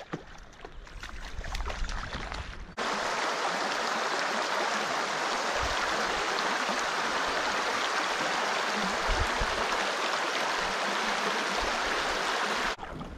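Shallow river water rushing over a stony riffle. The steady rush starts suddenly about three seconds in and cuts off abruptly near the end; before it there is only quieter outdoor noise with low rumbles.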